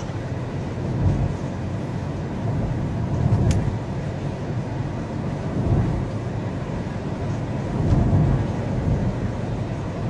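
Car cabin noise while driving: a steady low rumble of engine and tyres, swelling now and then. A single faint click comes about three and a half seconds in.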